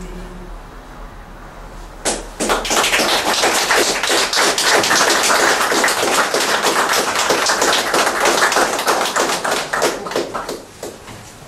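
Audience applauding, breaking out about two seconds in and dying away near the end.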